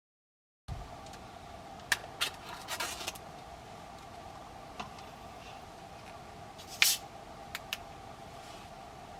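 A few crinkles and sharp clicks of things being handled over a steady hum, starting suddenly after a cut.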